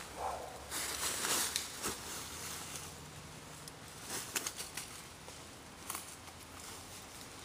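Footsteps and scuffling through dry fallen leaves on a forest floor, with scattered rustles and crackles.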